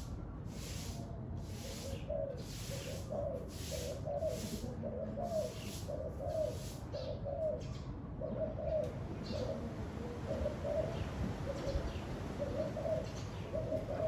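Spotted dove cooing, short phrases repeated about once a second, over a low wind rumble on the microphone. A pulsing high hiss, about twice a second, runs through the first half and stops about eight seconds in.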